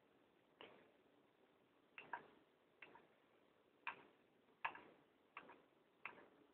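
A small hand tool clicking against a stainless steel door as it presses a rubber gasket into the door's groove: about eight short, sharp clicks at irregular intervals, some in quick pairs.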